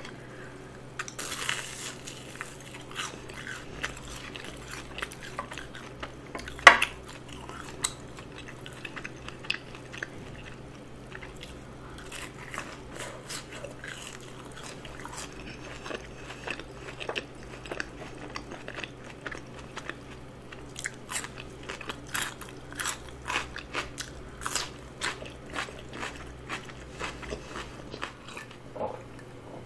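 Close-miked chewing of crispy fried food: irregular crunches mixed with wet chewing, one much louder sharp crunch about seven seconds in, and a denser run of crunches in the second half.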